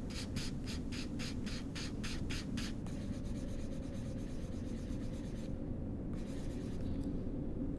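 A stick of charcoal scratching across paper in quick even strokes, about four a second for the first three seconds, then more strokes after a brief pause, over a steady low hum.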